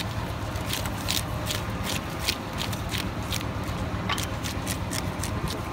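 Katla flesh being pulled through an upright curved bonti blade: short, crisp slicing scrapes about three to five a second, over a steady low background hum.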